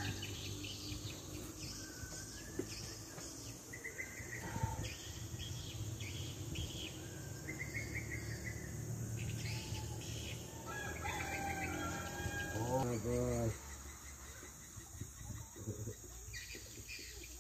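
Outdoor birds chirping on and off over a faint insect chorus and a low steady hum, with one brief pitched call about three-quarters of the way through.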